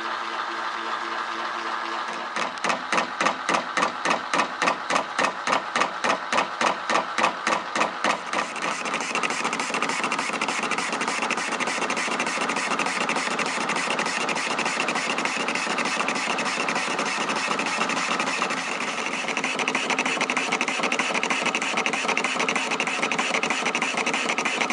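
Metal lathe running with a cutting tool turning a step on a workpiece held in a four-jaw chuck. For the first several seconds the cut pulses evenly, about four times a second, then it settles into a steady cutting sound.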